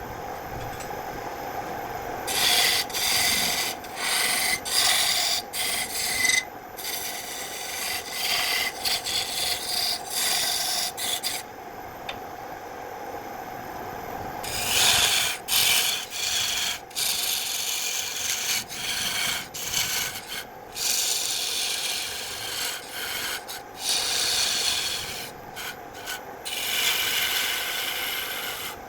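A tool scraping against wood in repeated passes, some brief and some lasting a few seconds, with a pause partway through. Under it runs the steady hum of a running machine motor.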